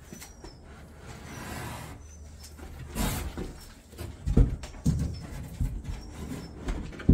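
Shower base being lowered into its corner onto a mortar bed: a scrape, then several dull thumps and knocks as the pan is set down and settled, the loudest a little past halfway.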